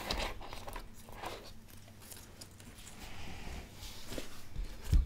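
Handling noise from a cardboard tarot box: soft scraping and rustling as the deck is drawn out by its ribbon tab, with a dull thump near the end.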